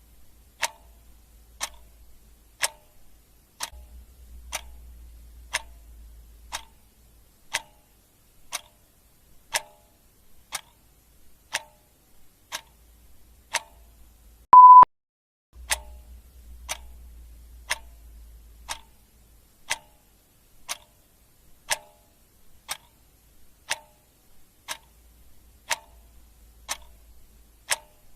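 Clock ticking steadily, about one tick a second. About halfway through there is a single short high beep, louder than the ticks.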